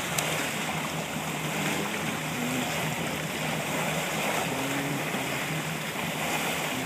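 Motorboat under way: a steady low engine hum under a constant rush of water along the hull and wind.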